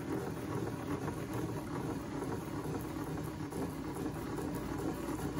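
Steady mechanical whirring and rattling of a WEN thickness planer's height-adjustment crank being turned by hand, raising the cutterhead through its bevel gears and lead screws, which are meshing freely after the repair.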